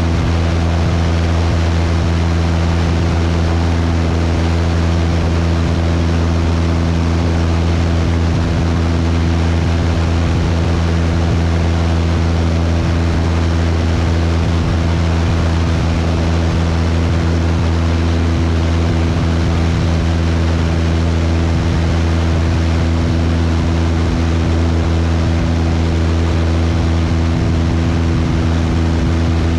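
Cessna 172's piston engine and propeller in cruise flight: a steady, even drone with a constant rush of air over it.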